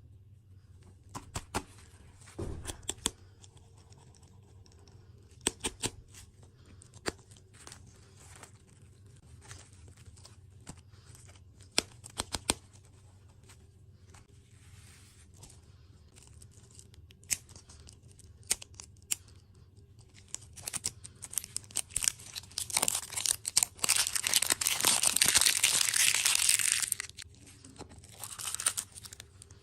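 Food packaging being torn open and crinkled, with scattered sharp clicks and taps. Near the end comes a few seconds of dense, louder crinkling.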